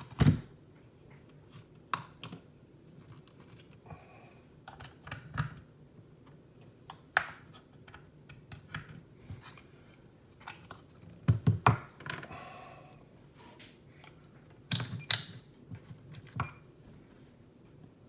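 Handling clicks and knocks from multimeters and test leads being set up and moved on a workbench: scattered sharp clicks, with louder clusters about eleven and fifteen seconds in and a short rustle between them.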